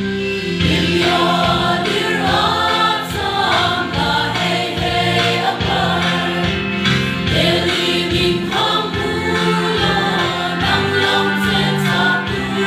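Church choir singing a gospel song, with sustained instrumental backing beneath the voices.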